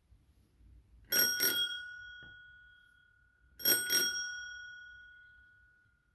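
Adsports NZ daisy-flower bicycle bell rung twice by its lever, each time a quick double ding. Each ring goes on and fades away over about two seconds.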